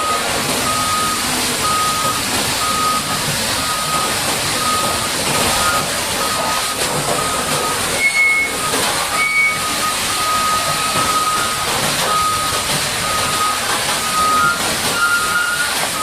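A reversing alarm beeping steadily, about once a second, over a steady loud hiss of water spray from a wash jet.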